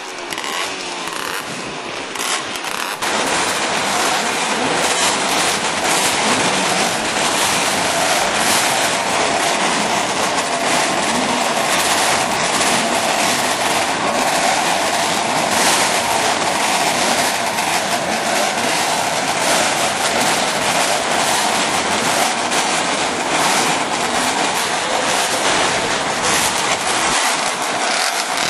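Several racing motorcycle engines running together in a loud, crackling mass of exhaust noise, which gets louder about three seconds in.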